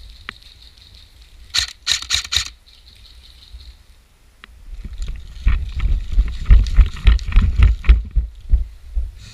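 Four quick sharp airsoft gun shots about a second and a half in. Then several seconds of irregular low thumps and rustling from movement against the microphone, louder than the shots.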